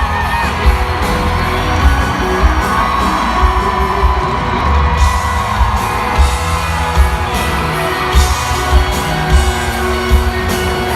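A live country band playing loud through a concert PA, with heavy bass and a steady kick-drum beat, singing over the band and some whoops from the crowd.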